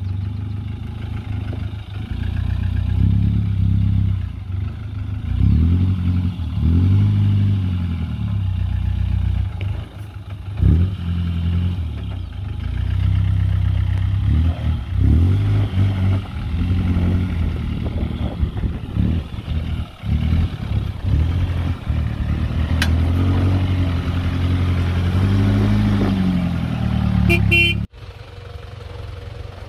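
A Troller 4x4's engine revving up and down under load as the truck crawls over deep ruts, its pitch rising and falling with each push of throttle. It drops off suddenly near the end.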